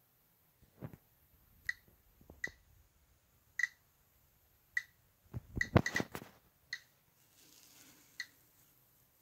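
Geiger counter clicking at a slow, irregular rate, about nine clicks, as it picks up radiation from a thorianite specimen. Dull knocks and rubbing from handling come about a second in and, loudest, around six seconds in.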